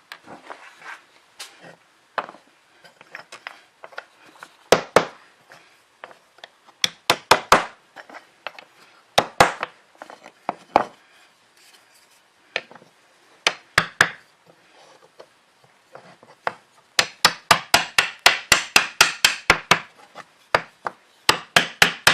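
Sharp wooden knocks and clacks, scattered and irregular at first, then a fast run of even taps, about five a second, through the last few seconds.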